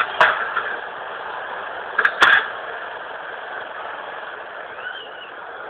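Steady noisy background hiss, with a sharp click about a quarter second in and a quick pair of clicks around two seconds in. A faint, short high squeak comes near the end.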